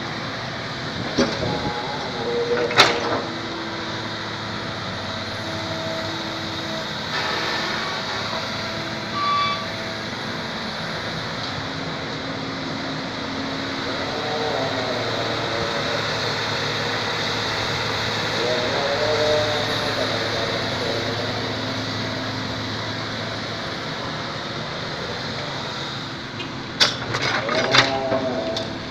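Excavator's diesel engine running steadily while it moves soil, with a few sharp metallic clanks near the start and again near the end.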